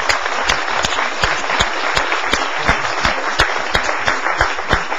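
Audience applauding, a dense patter of many hands, with louder single claps near the microphone standing out about three times a second.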